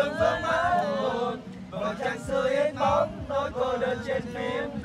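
Men's voices singing together in a chant-like tune of short, changing notes.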